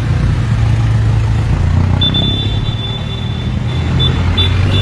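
Road traffic: a motor vehicle's engine running with a steady low hum, and a thin high tone joining about two seconds in.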